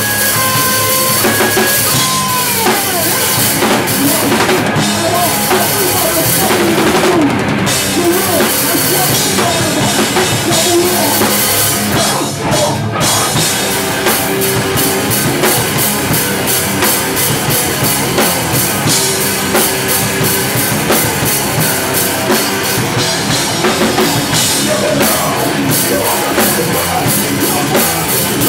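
Hardcore punk band playing live: distorted electric guitars and a drum kit close to the microphone, with a brief break about twelve seconds in.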